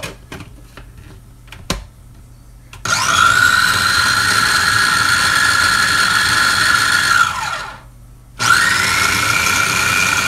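Small electric food chopper grinding tomato for salsa: a few clicks as it is set up, then the motor whirs up about three seconds in and runs steadily. It winds down with a falling pitch and starts again about a second later, running on.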